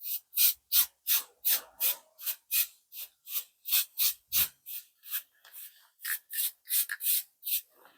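Aerosol spray-paint can being shaken, its mixing ball rattling in a steady rhythm of about three strokes a second.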